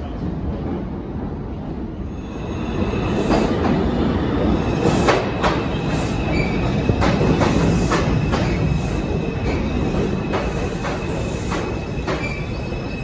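An R142 New York City Subway train rumbling into an underground station, its wheels knocking over rail joints about twice a second once it reaches the platform, about two seconds in, with a thin high squeal running under the knocks.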